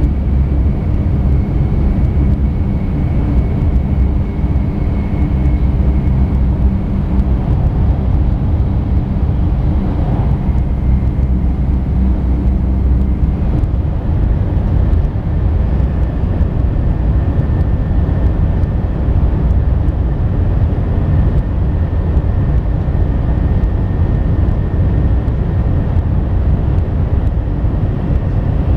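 Cabin running noise inside a JR Kyushu 800 series shinkansen car: a steady low rumble with a faint high whine above it.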